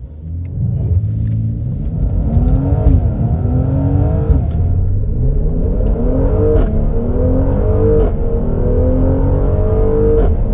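A Mercedes-AMG GLC43's 3.0-litre twin-turbo V6 accelerates hard at full throttle. Its pitch climbs through each gear and drops back at each of several quick upshifts, with a short sharp snap at several of the shifts.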